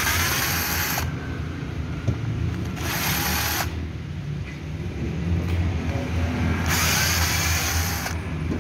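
Cordless drill-driver spinning in three short runs, about a second each, backing out the housing screws of a reciprocating saw being taken apart.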